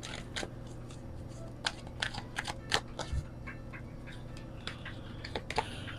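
A deck of oracle cards being shuffled by hand: irregular soft flicks and snaps of the cards against each other, a little busier about two to three seconds in.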